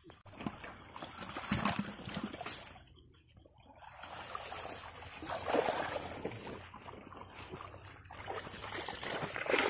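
Water splashing and trickling, with the rustle of a wet fishing net being handled in the shallows, irregular and uneven, dipping quieter about three seconds in.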